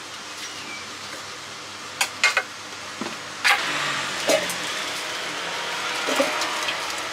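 Metal scoop clinking against a stainless steel bowl and glass tray while fruit pieces are scooped up, with a few sharp clinks about two seconds in. Then a steady scraping rustle, with a couple of light knocks, from about halfway on.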